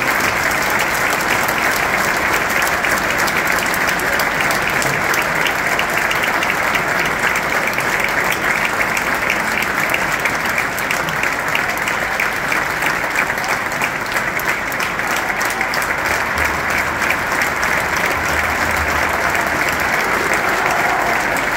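A large stadium crowd applauding steadily.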